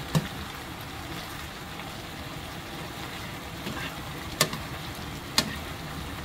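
Diced eggplant and carrots sizzling steadily in soy sauce and their own released liquid in a frying pan, with a spoon clicking against the pan three times: once at the start, then about four and a half and five and a half seconds in.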